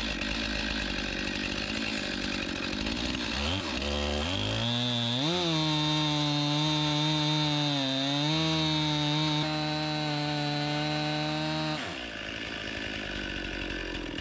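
Chainsaw mounted in a chainsaw mill, fitted with a 0-degree full-chisel chain, idling, then revving up about four seconds in. It holds at steady full throttle as it starts milling a board, then drops back to idle near the end.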